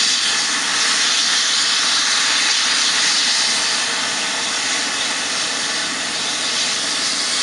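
Eurocopter EC135 air-ambulance helicopter's turbine engines running on the ground before lift-off, a steady loud hissing whine.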